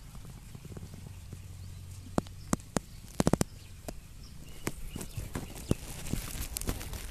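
Irregular sharp clicks and knocks, with a quick run of four or five about three seconds in, over a faint low rumble.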